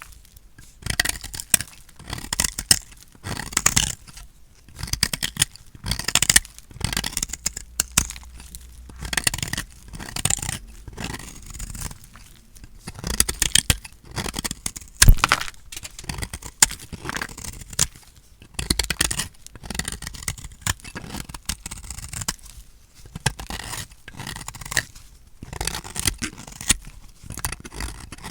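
Dry, painted bar soap being cut with a blade: crisp crunching and crackling in repeated strokes every second or two, with one especially sharp crack about halfway through.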